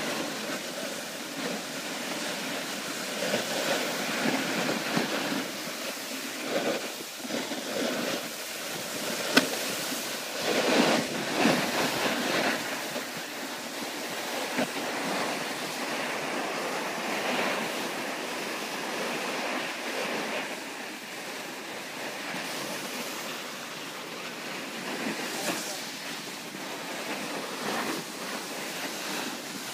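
Snowboard edges scraping and sliding over snow, a continuous hiss that swells about ten to twelve seconds in, mixed with wind on the microphone. A single sharp knock about nine seconds in.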